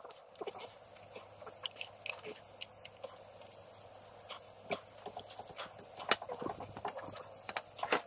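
A 2012 Toyota RAV4's front brake caliper being lowered over new pads onto its mounting bracket: scattered light metal clicks and knocks, over a faint steady hum.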